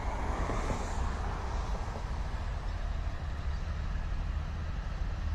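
Freight train passing at a distance, hauled by two diesel locomotives: a steady low rumble of engines and rolling cars.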